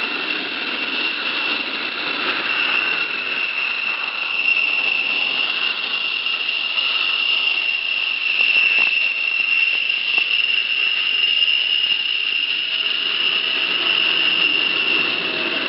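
F-16 fighter's jet engine running at taxi power: a steady high-pitched whine over a rushing hiss, growing a little louder about halfway through.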